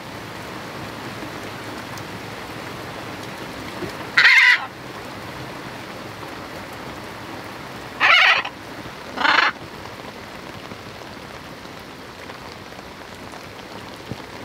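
Steady heavy rain falling on a sailboat's deck. Over it a green-winged macaw gives three short, loud squawks: one about four seconds in, then two close together about eight and nine seconds in.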